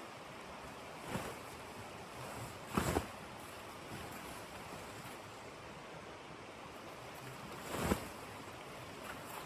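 Steady blizzard wind with three short, sharp louder bursts, the loudest about three seconds in and another near the end.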